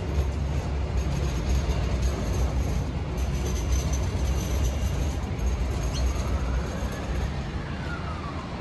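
Alstom Citadis 305 tram coming into the stop: a steady low rumble of the tram running that eases off after about six seconds, with a faint whine that rises and then falls in pitch over the last couple of seconds.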